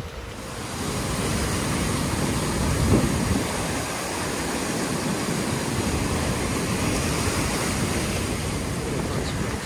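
Swollen Megunticook River floodwater rushing and churning in a steady turbulent wash. Gusts of wind buffet the microphone, strongest about three seconds in.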